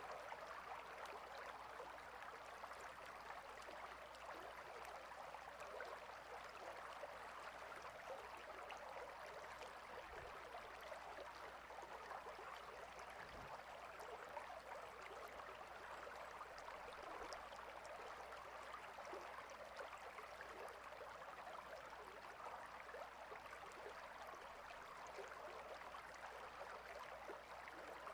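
Faint, steady hiss of running water, even and unbroken.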